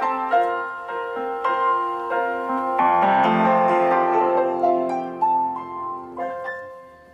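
Solo upright piano playing chords and a melody line, with a full chord struck about three seconds in. Near the end a held chord dies away.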